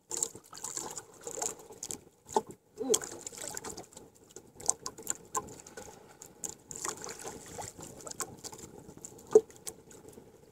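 Water lapping and splashing against the hull of a small wooden outrigger boat at sea, an irregular wash broken by scattered short taps and knocks.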